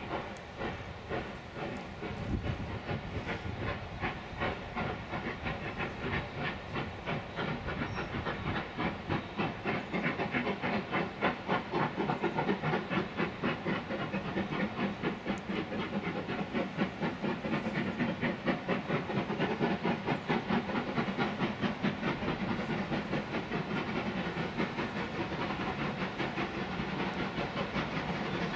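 Steam locomotive working, out of sight, its exhaust beats quick and rhythmic, growing louder over the first ten seconds or so as it approaches and then holding steady.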